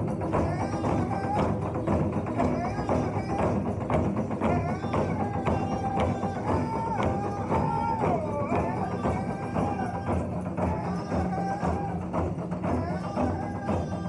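Powwow drum group: several drummers striking a large shared hide drum with padded beaters in a steady, driving beat, under wavering group singing.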